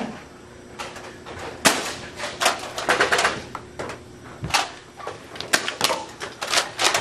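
Irregular sharp clicks, snaps and taps, a dozen or so, from Nerf blasters firing and foam darts striking hard surfaces.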